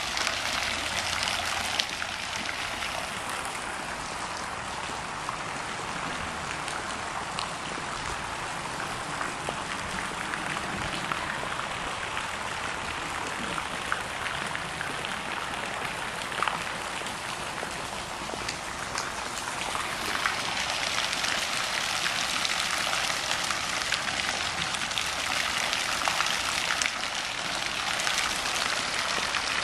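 Swimming pool water features running: deck jets arcing streams of water into the pool and bubblers splashing at the surface, a steady splashing that grows louder about twenty seconds in.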